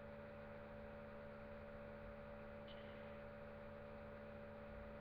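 Near silence: room tone with a faint steady electrical hum and hiss.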